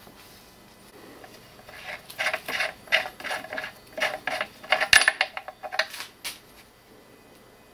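Steel sheep shear blades (combs and cutters) clinking and clattering against each other and the table as they are handled: an irregular run of light metallic clinks lasting about four seconds, loudest near the middle.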